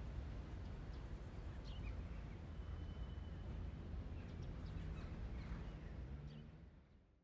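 Outdoor ambience: a low steady rumble with a few faint bird chirps, fading out near the end.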